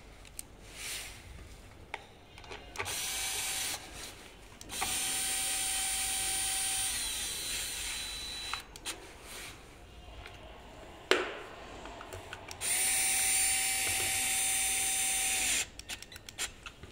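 Electric drill-driver running in three bursts, the middle one about four seconds long, driving screws during scooter assembly. A sharp click comes between the second and third bursts, and a few light clicks follow near the end.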